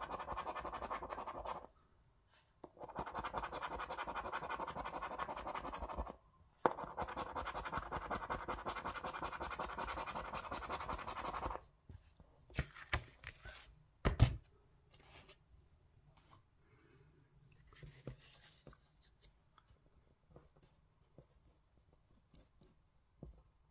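A coin scratching the latex coating off a lottery scratch card, in three long bouts with short pauses between them. After that the scratching stops and there are only scattered sharp taps and clicks as the cards are handled, the loudest about two seconds after the scratching ends.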